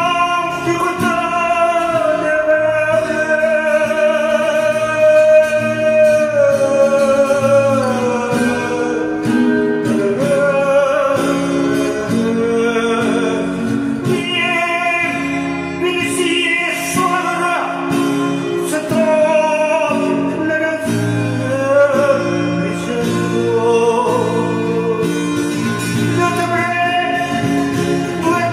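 A slow song sung in Vietnamese with vibrato on long held notes, over improvised acoustic guitar accompaniment.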